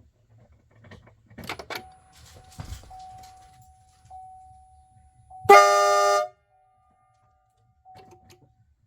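A pickup truck's newly fitted air horn sounds one short test blast, under a second long, about halfway through, with several notes sounding together. A few clicks and a faint steady tone come before it.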